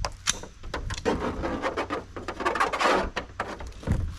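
A computer being smashed into a flat-screen TV: a run of sharp knocks and cracks, with a dense clatter of breaking plastic and glass from about one to three seconds in.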